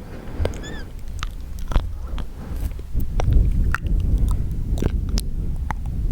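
Close-miked wet mouth sounds: a string of irregular wet clicks and smacks from the tongue and lips, with a brief squeaky chirp about half a second in.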